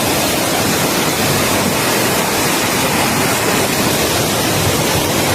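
Steady, loud rush of water, typical of a tropical downpour and floodwater running through the streets.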